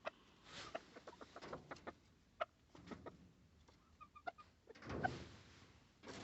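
Domestic chickens clucking faintly, with short calls scattered throughout, and a brief rustling rush a little after five seconds in.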